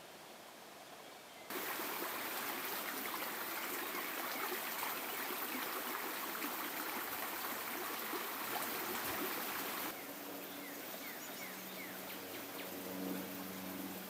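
Shallow rocky creek rippling and babbling over stones. It cuts in suddenly about a second and a half in and drops away about ten seconds in to quieter outdoor ambience.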